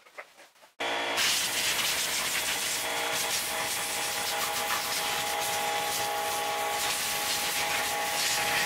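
Compressed air from an airline hissing steadily through the water jacket passages of a Volvo Penta MD1B engine to blow them clear, starting abruptly under a second in, with a steady whine mixed in.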